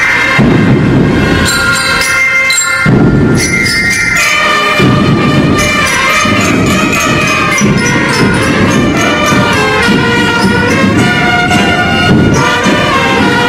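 Music with sustained, shifting chords over a dense low accompaniment.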